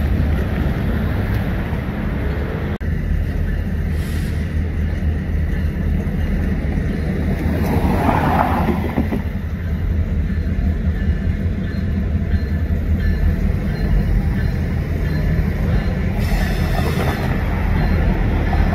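Union Pacific diesel-electric locomotive 697 running with a steady low engine rumble as it creeps toward the crossing, with a brief rushing sound about eight seconds in.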